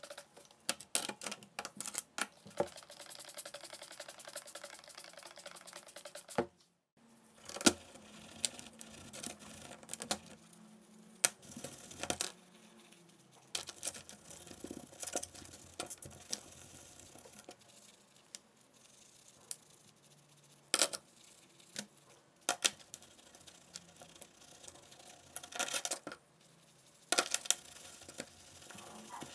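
Small metal gearbox parts of a cordless drill clicking and clinking against a metal tray as they are scrubbed with a bristle brush in cleaning fluid. The clicks come irregularly, with light wet brushing between them.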